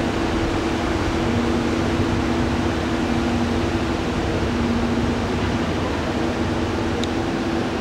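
Steady machine-like hum and hiss with two low steady tones held under it; a faint click about seven seconds in.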